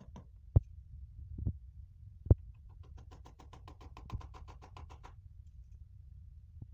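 Hammer knocking on a PVC wall panel: two sharp knocks with a softer one between them, then a rapid ticking rattle for about two seconds and one more knock.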